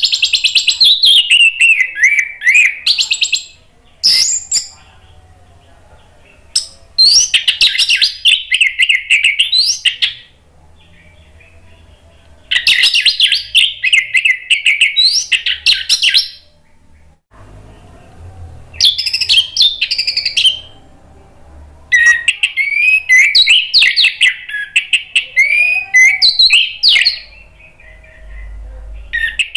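Orange-headed thrush singing loud, varied warbling phrases a few seconds long, with short pauses between them.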